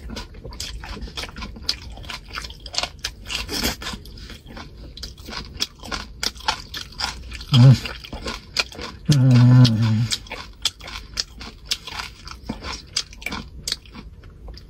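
A person chewing braised yak meat off the bone: wet, crackly chewing and biting clicks, the meat tough and sinewy and hard to chew down. A short voiced grunt comes about halfway through, and a longer one follows a second or so later.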